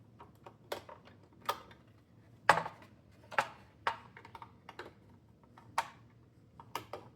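Irregular sharp plastic clicks and taps, roughly one a second and loudest about two and a half seconds in, from handling the coffee machine's new front panel while its ribbon cable is fitted to the connector.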